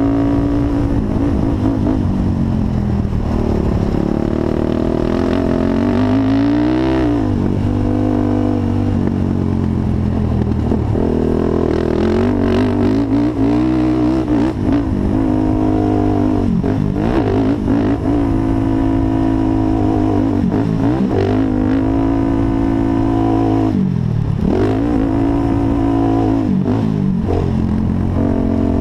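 Honda TRX450 quad's single-cylinder four-stroke engine under hard riding, revving up and dropping back again and again as the throttle is opened and chopped and gears change.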